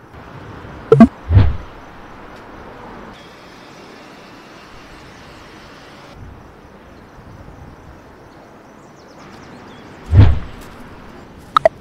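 Two heavy thumps, one about a second in and one near the end, each paired with a couple of sharp clicks, over a steady low background noise.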